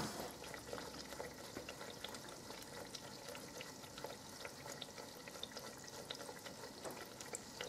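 Slices of bread deep-frying in oil in an electric deep fryer: a faint, steady sizzle with scattered tiny pops as the bread starts to bubble.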